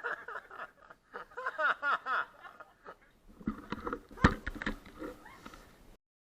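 A person's voice, talking and laughing, then a few sharp knocks like a microphone being handled; the sound cuts off abruptly to dead silence about six seconds in.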